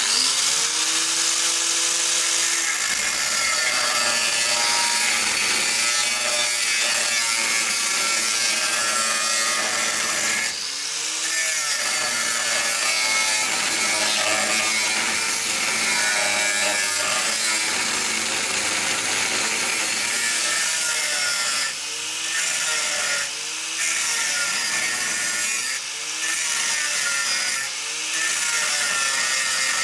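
Angle grinder with a cut-off disc cutting through the rusty steel rear crossmember of a Land Rover Defender 110: a steady loud grinding screech of the disc in the metal. It breaks off briefly once about a third of the way in and four times near the end, the motor's whine dipping and recovering each time the disc comes off the cut.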